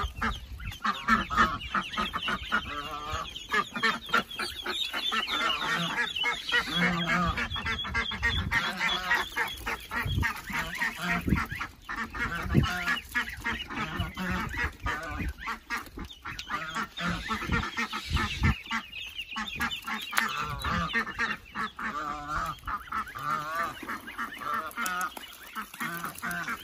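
Domestic geese honking repeatedly, many calls overlapping, with duck calls mixed in from a flock of ducks, geese and their young.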